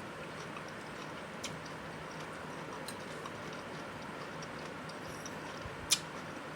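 Quiet eating sounds: a few sparse sharp clicks or crunches from chewing and utensils, the loudest near the end, over a steady background hiss.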